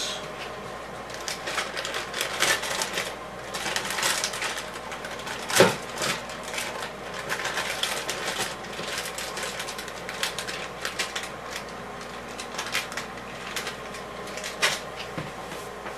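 Irregular light clicking and crinkling of a plastic bag and vegetable pieces as bagged vegetables are emptied out and portioned into a small bag, with one sharper knock about six seconds in.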